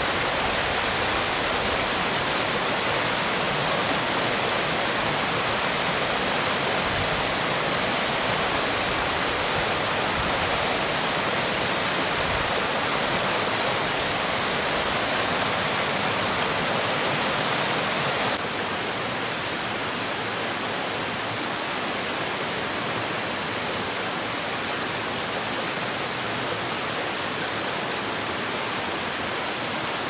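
A mountain stream rushing and splashing over rocks in a steady, even wash of water noise. About eighteen seconds in, it drops a little quieter and loses some of its high hiss.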